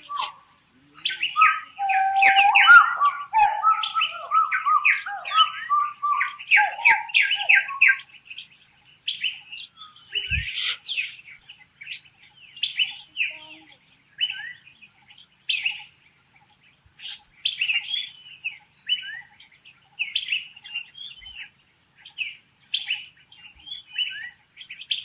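Forest birds chirping: a dense, rapid run of high chirps with a lower-pitched series of calls under it for the first eight seconds, then scattered, spaced-out chirps. A single brief thump about ten seconds in.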